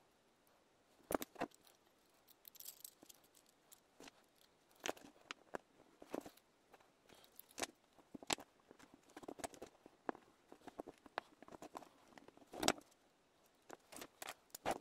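Small metal parts and tools handled on a wooden tabletop: scattered light clicks, taps and clinks, with a sharper knock about a second in and another near the end.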